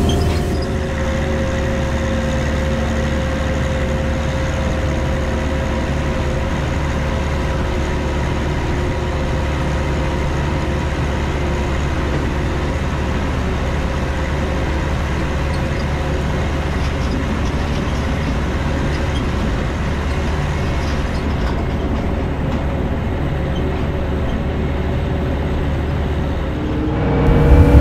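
1964 Chamberlain Countryman 6 tractor's Perkins 6354 six-cylinder diesel running steadily under load while pulling a seeder, a deep hum with a steady whining tone over it.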